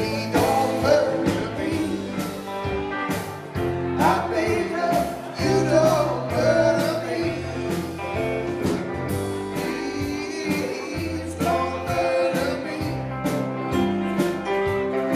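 Live rock band playing: two electric guitars, bass guitar, keyboards and drums, with sung vocals and a steady drum beat.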